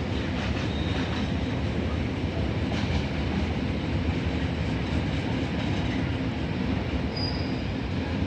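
Train running along the tracks through a station: a steady rumble with a few faint wheel clicks and a brief high squeak near the end.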